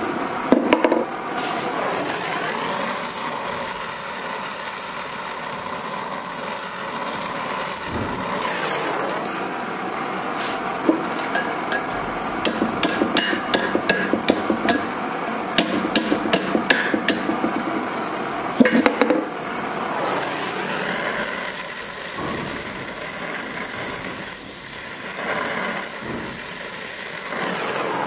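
Hand hammer striking a small piece of hot steel held in tongs on the anvil horn, in runs of quick taps with pauses between them. A steady hiss runs underneath.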